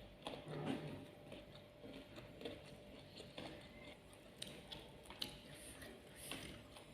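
Chewing and mouth sounds of someone eating: faint, irregular soft clicks and wet smacks.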